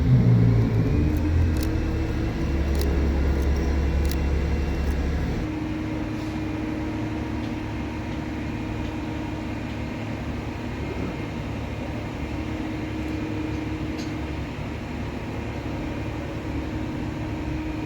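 Ferrari Daytona SP3's naturally aspirated 6.5-litre V12 blips its revs right at the start, runs at a raised idle, then settles to a lower, steadier idle about five seconds in.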